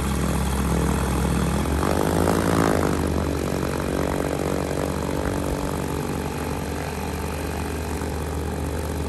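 Bristell light aircraft's piston engine and propeller running at low power as the plane taxis. The engine note swells briefly about two seconds in, then settles back to a steady run.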